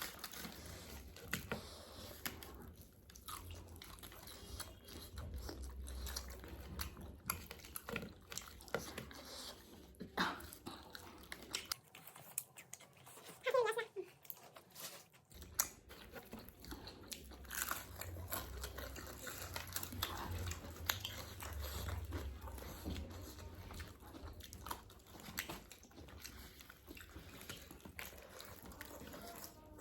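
Close-up eating sounds: biting, crunching and chewing of KFC fried chicken, with many short crisp clicks scattered irregularly.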